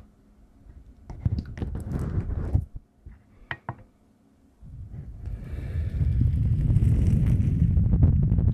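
Hands brushing, rubbing and tapping right against a recorder's microphones, heard very close. A sharp click comes first, then scattered crackly brushing and finger taps; from about halfway a steady rubbing swish sets in and grows louder.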